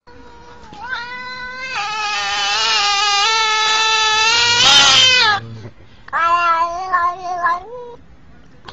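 Domestic cat yowling: one long drawn-out meow of about four seconds that turns harsh at its end, then a shorter, wavering meow.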